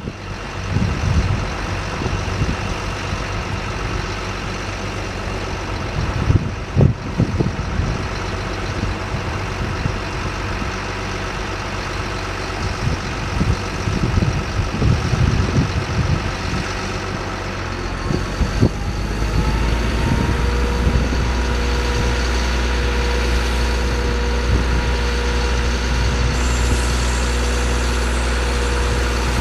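2006 GMC C7500 truck's engine idling, with scattered knocks over the first part. About 19 seconds in the engine note changes and settles into a steadier, deeper hum with a steady whine on top.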